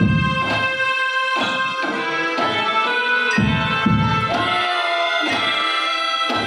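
A school drum band playing: a sustained wind melody over repeated bass-drum beats.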